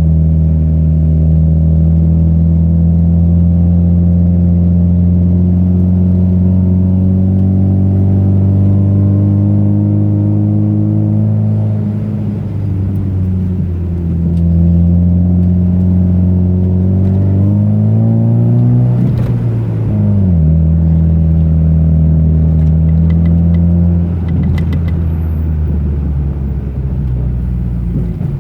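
Car engine heard from on board while driving, a steady low note. About two-thirds of the way through it climbs in pitch, then falls sharply and settles again. A sharp knock comes near the peak, with a few light rattles after it.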